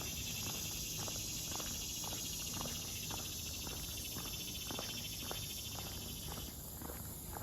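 Insects trilling in a steady, finely pulsing high-pitched chorus that cuts off abruptly about six and a half seconds in. Under it, footsteps on the trail at about two steps a second.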